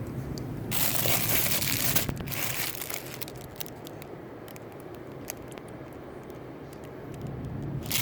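Packaging crinkling as it is handled: a rustling burst about a second in and a shorter one a little later, then scattered light clicks and ticks, with the crinkling starting again near the end.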